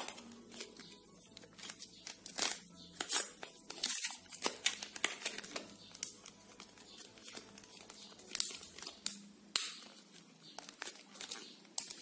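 Crinkling and crackling of a SIM card starter pack, its card and wrapping handled and flexed by hand as the SIM is worked out, with scattered sharp clicks.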